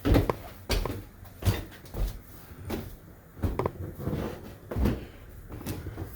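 Footsteps going up a flight of stairs: a run of dull thuds, roughly one every half second to second.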